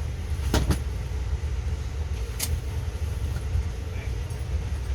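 Steady low rumble of an Amtrak passenger train heard from inside the coach, with a couple of quick sharp clicks about half a second in and one more at about two and a half seconds.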